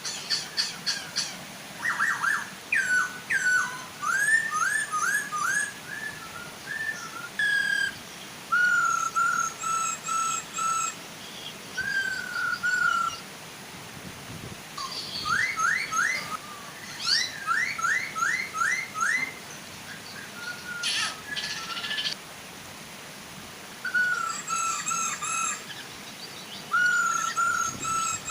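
Poksay hongkong laughingthrushes singing loud, varied whistled phrases: sliding notes, quick runs of repeated notes and high trills, with short pauses between phrases. A soft, steady waterfall rushes underneath.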